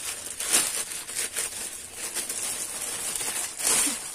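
Rustling and crinkling as a new tote bag, its handles wrapped and its paper tag attached, is handled and lifted, with a louder rustle near the end.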